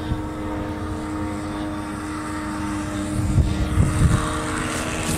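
The two-stroke OS 46 AX glow engine of a Phoenix Scanner RC plane idling at a steady pitch on the landing approach. A few low thumps come between about three and four and a half seconds in.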